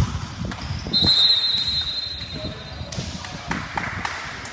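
Basketball thumping on a court floor, a sharp thump at the start then more bounces, with a high steady squeal lasting about a second, starting about a second in.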